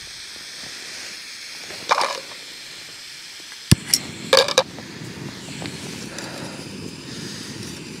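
Steady hiss of a backpacking gas stove burning. About halfway through comes a sharp click and a few short metal clinks of camp cookware.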